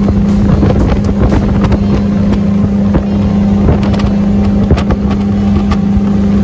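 Yamaha motorboat under way, its engine running with a steady drone and a strong constant hum over a rush of water. Wind buffets the microphone, and short sharp ticks come through the noise.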